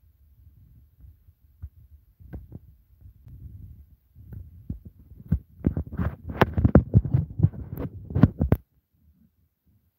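Handling noise from a phone microphone being rubbed and knocked: low rumbling thumps with scattered knocks, building about halfway into a rapid run of sharp knocks that cuts off suddenly.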